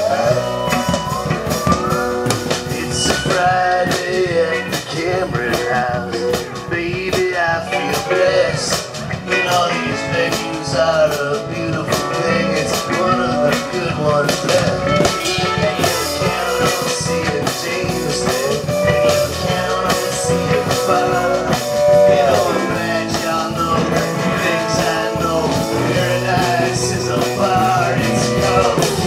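Folk-rock band playing an instrumental passage: strummed acoustic guitar, bass, and a drum kit with cymbals, with a lead line sliding up and down in pitch over the top.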